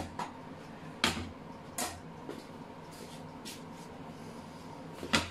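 Cookware being handled on a glass-ceramic hob: a stainless steel pan lid lifted and set down, with a few sharp knocks and clinks about a second in, near two seconds and near the end, and fainter ticks between.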